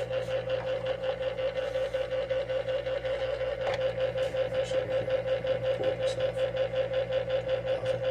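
Small electric knife sharpener motor running unloaded with a steady hum that pulses quickly and evenly, a few faint clicks over it.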